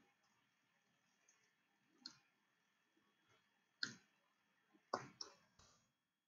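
Computer mouse clicking in a quiet room: a few short, sharp clicks spread out, with three in quick succession about five seconds in.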